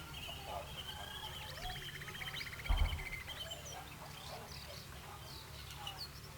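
Birds chirping and trilling in many short calls over a steady low hum, with a single dull thump just under three seconds in.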